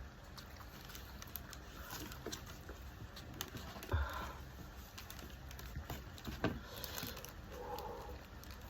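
Eating sounds: quiet chewing and handling of food, with scattered small clicks and taps and a soft thump about four seconds in and again about six and a half seconds in.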